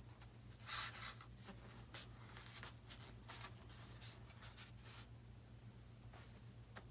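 Faint handling noises from a foam-and-plastic RC model airplane being worked on by hand: a short scrape about a second in, then scattered light clicks, over a steady low hum.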